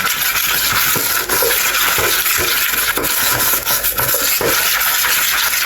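Cut potatoes being mixed by hand in a bowl with a wet masala marinade of yogurt, oil and ground spices, with irregular rubbing and scraping throughout.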